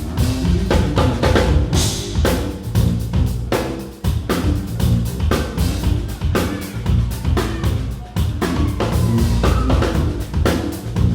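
Live band music led by a drum kit, with kick and snare drum hits in a steady fast rhythm over bass notes.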